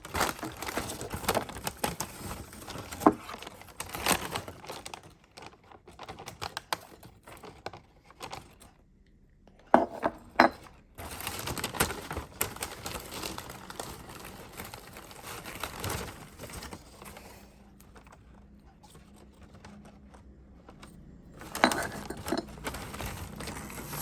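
Close handling sounds: irregular light clicks and clinks of small objects with crinkling rustle, in scattered clusters with short quieter pauses.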